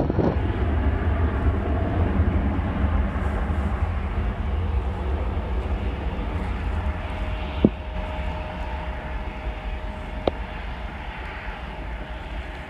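Distant jet airliner's engines on the runway: a steady rumble and roar that slowly fades. Two short clicks come in the second half.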